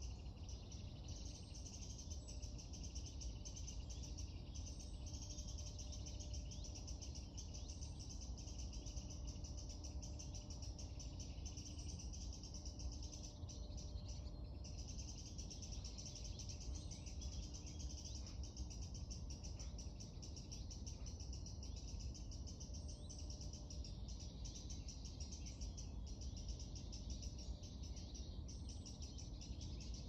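Dawn chorus: many songbirds singing at once, their songs overlapping into a steady high twittering, over a low steady rumble.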